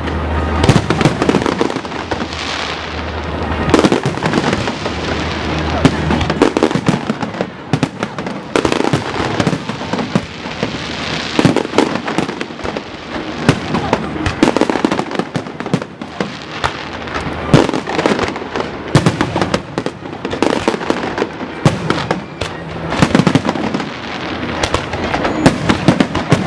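Aerial fireworks display: a dense, continuous barrage of shell bursts and crackle, with sharp bangs several times a second throughout.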